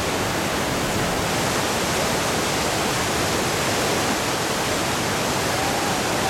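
Heavy whitewater rapid churning over and around boulders: a steady roar of rushing water.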